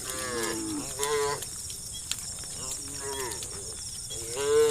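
Cattle mooing in a series of short calls, the loudest near the end, over a steady high-pitched chirring of crickets.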